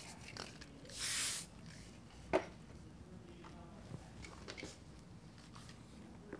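One short hiss of Phyto Organics VaporGel firm-hold micro-gel mist sprayed from its can, about a second in, lasting about half a second. A sharp click follows about a second later, then a few faint ticks.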